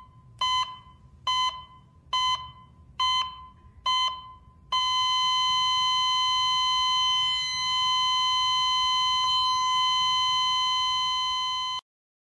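Heart-monitor flatline sound effect: five short electronic beeps about a second apart, then one long unbroken tone of the same pitch lasting about seven seconds that cuts off suddenly, signalling death.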